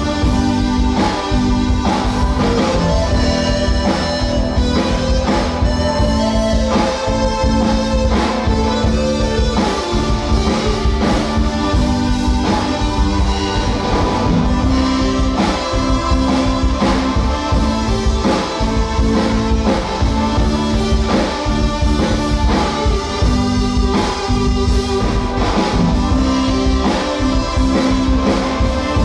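Live band playing loud amplified music: electric guitars and keyboard over drums keeping a steady beat.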